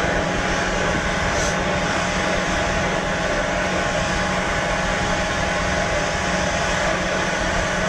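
Steady droning of a workshop machine running continuously, an even noise with a constant hum and tone that does not change.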